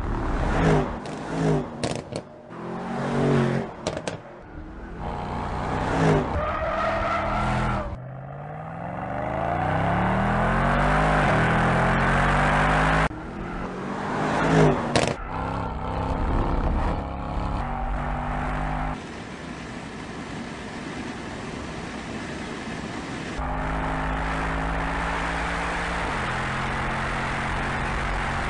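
Mercedes-AMG E63 S's twin-turbo 4.0-litre V8 being driven hard on a track: short rising and falling revs, then one long climb in revs, then steadier running, with some tyre squeal. The sound changes abruptly several times where shots are cut together.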